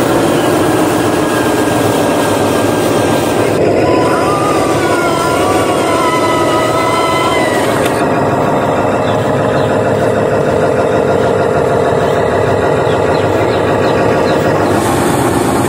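Simulated diesel truck engine running steadily under load, with a wavering whine over it for a few seconds in the middle; the sound changes abruptly a few times.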